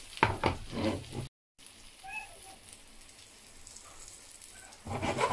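Spanish potato omelette frying in olive oil in a non-stick pan, sizzling steadily. A few louder short sounds come in the first second and again near the end.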